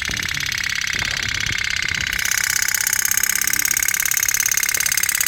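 Candle-heated toy pop-pop boat running, its little steam engine putt-putting as a rapid, even buzzing pulse that grows louder about two seconds in.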